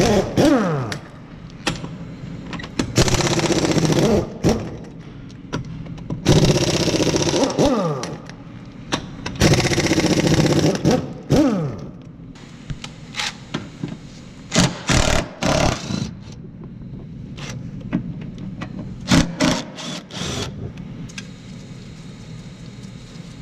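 Pneumatic impact wrench hammering wheel lug nuts loose: four bursts of a second or two each, each ending in a falling whine as the trigger is let go, then a run of short blips.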